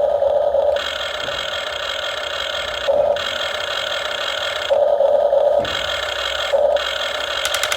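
Whine of small electric motors and hydraulic pumps in RC construction models, switching every second or two between a lower steady hum and a higher, brighter whine as the machines work. A few quick ticks near the end.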